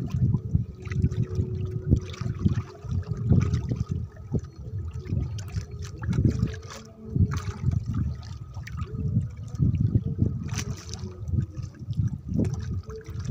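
Water lapping and sloshing against the hull of a small wooden boat in irregular surges.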